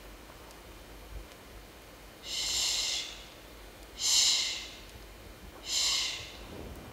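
A person breathing hard on stage: three loud, breathy exhalations, each under a second, about a second and a half apart.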